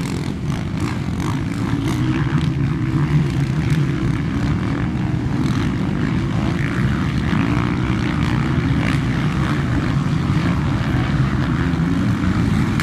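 Several motocross motorcycle engines running at once, blending into a steady, loud drone.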